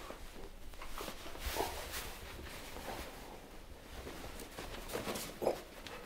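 A person moving about a small room: soft rustling and footsteps, with a slightly louder bump near the end.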